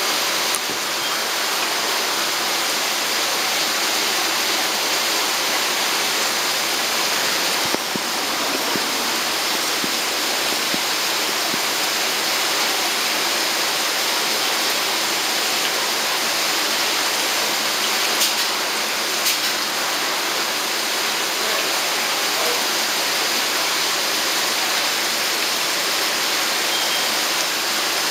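Water pouring from an inlet pipe into a fish tank, splashing steadily onto the surface.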